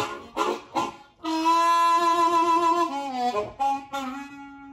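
Harmonica played with both hands cupped around it: a few short breathy chord puffs, then a long held note with a wavering vibrato that bends down about three seconds in and settles into a quieter steady note.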